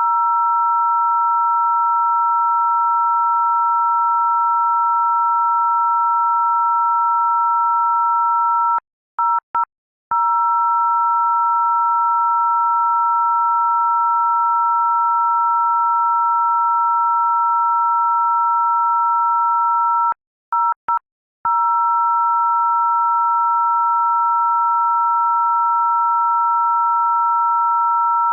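Loud, steady electronic two-note tone: two pure pitches a little under and a little over 1 kHz, sounded together like a dial tone. It cuts out briefly twice, about a third and two-thirds of the way through, stuttering in a few short blips before holding steady again.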